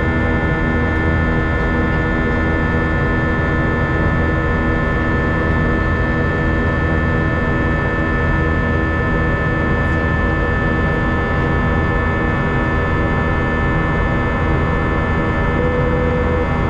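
Steady jet-engine and airflow drone heard inside the cabin of an Airbus A320 airliner, a constant roar with several steady whining tones running through it. A brief steady tone sounds near the end.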